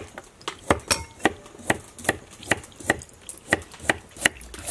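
Kitchen knife slicing through carrot onto a wooden chopping board in an even rhythm, about ten sharp strokes at roughly two and a half a second.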